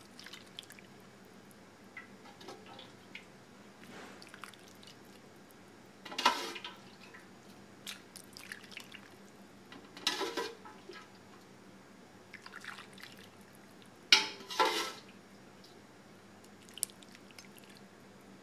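Simmering liquid ladled over a simmered tuna collar on a plate: a few short pours and splashes, the loudest three spread over the stretch, with small drips and taps between them.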